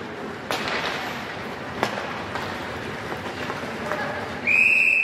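Ice hockey game in a rink: two sharp cracks of stick and puck about half a second and nearly two seconds in, over a background of voices, then a loud, steady, high whistle blast starting near the end, the referee's whistle stopping play.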